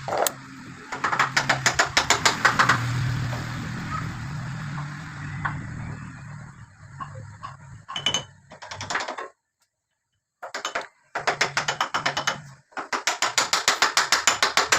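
Engine of a paving-block vibrating machine running, with a low hum under rapid rhythmic clattering of about seven knocks a second. The clattering comes in bursts of a few seconds, drops out completely a little past halfway, then starts again twice.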